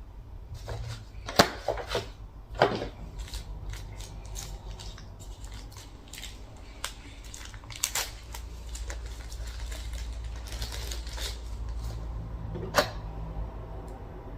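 Hands handling and fitting small plastic camera accessories and their packaging: scattered sharp plastic clicks and knocks over light rustling, with three louder clicks, one near the start, one a little later and one near the end.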